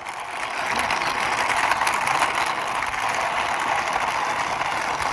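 Plastic toy racing car pushed by hand across rough stone, its wheels and works giving a steady, dense rattle.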